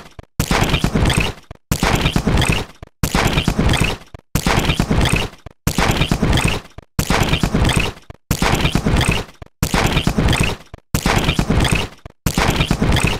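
Tech-device glitch sound effect: a burst of crackling, stuttering electronic noise about a second long that fades out, then cuts to a brief silence. It repeats about every 1.3 seconds, some ten times in a row.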